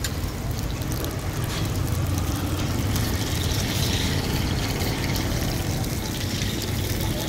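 Oil sizzling under parathas frying on a large flat griddle, the hiss growing brighter about halfway through as a paratha is pressed into the oil, over a steady low rumble.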